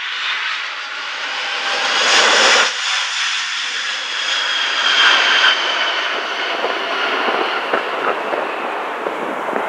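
McDonnell Douglas MD-11 freighter's three jet engines passing low overhead on final approach: a steady jet roar with a whine that slowly falls in pitch, loudest about two seconds in and again about five seconds in.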